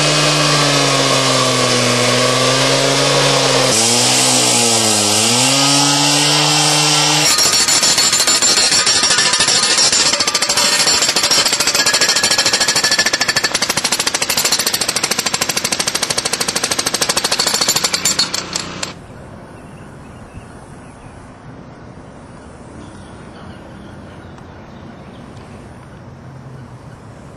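Pneumatic jackhammer driving an Oz Post steel spike anchor down through a concrete pad: a rapid, even pounding for about twelve seconds that stops suddenly. Before it, a motor runs with a steady hum whose pitch dips briefly as it takes load; after the jackhammer stops only faint background remains.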